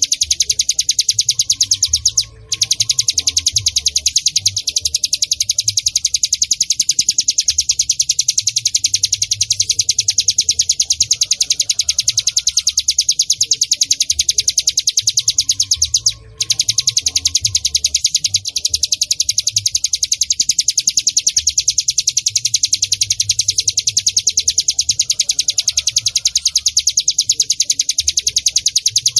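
Ciblek gunung (cigun) calling in a fast, continuous high-pitched chattering trill, broken only by two short pauses, about two seconds in and about sixteen seconds in.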